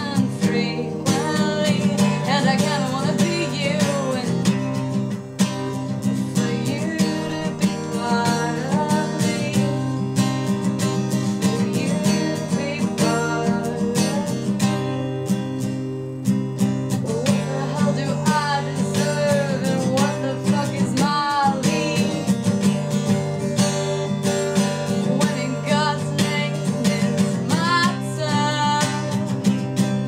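Steel-string acoustic guitar strummed steadily in a rhythm, with a woman's singing voice coming in over it at times.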